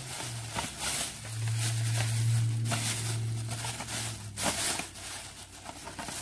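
Plastic packing bag crinkling and rustling as it is handled, with a few sharp crackles.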